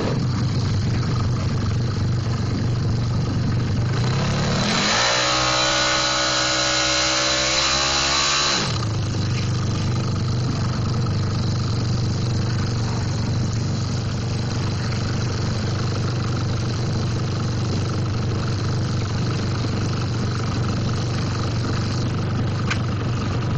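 Drag-racing motorcycle engines. About four seconds in, one revs up sharply and holds at high revs, and the sound cuts off abruptly at about nine seconds. After that a motorcycle engine runs steadily at low revs.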